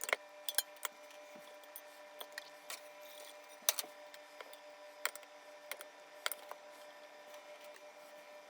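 Irregular clicks and taps of kitchen utensils against a pan and dishes while lasagna layers are spooned in, over a faint steady hum.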